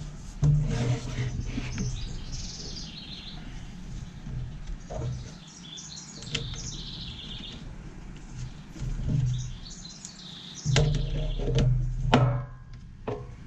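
Birds chirping, with bouts of knocking and clattering from chainsaw parts being handled during reassembly, loudest near the end.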